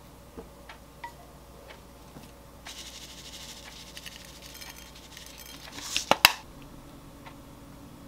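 Wooden chopsticks clicking lightly on a ceramic plate as food is arranged. Then a couple of seconds of sesame seeds being sprinkled from a small container onto the plate. About six seconds in come two sharp knocks, the loudest sounds.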